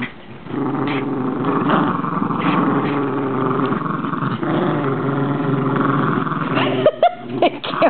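Jack Russell terriers growling continuously in a tug-of-war over a toy. Near the end the growl breaks into a few short, sharp sounds.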